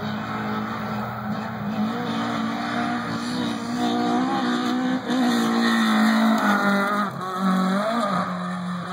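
Volkswagen Golf V Kit Car rally car approaching at full throttle and passing by, its engine pitch climbing and dropping in steps as it shifts through the gears. It is loudest about five to seven seconds in, with a short lift off the throttle just before that.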